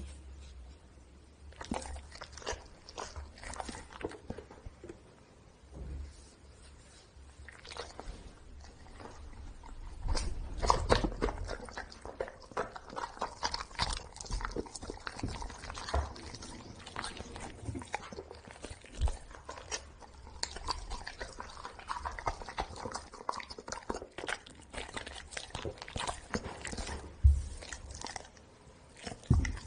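Golden retriever chewing and biting into soft red jelly and licking its lips: a run of close, sharp clicks and smacks, sparse at first and busier from about ten seconds in.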